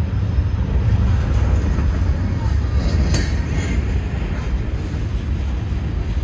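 Norfolk Southern freight train rolling past with a steady low rumble of railcars, and a brief sharp high sound about three seconds in.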